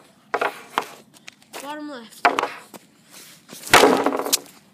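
Hockey pucks shot with an Easton RS65 stick off a plastic shooting pad: sharp clacks and slaps of the blade on the pad and puck, the loudest shot a little under a second before the end.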